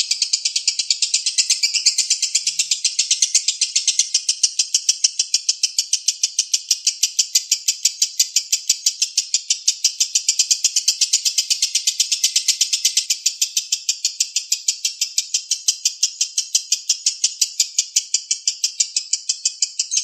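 Fischer's lovebird in long 'konslet' ngekek: a loud, unbroken chatter of rapid, high, sharp 'kek' notes, kept up without pause.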